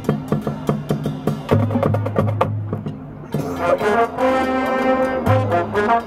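Marching band playing live: sharp percussion hits over sustained low brass notes, with the full brass section coming in loudly about three seconds in.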